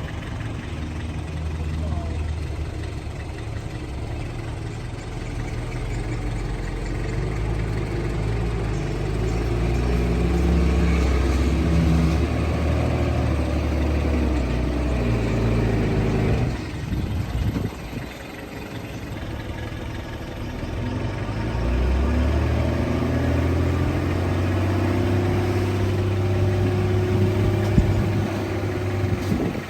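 Heavy earthmoving machinery's diesel engine running and working under load, growing louder twice, with a brief lull a little past the middle.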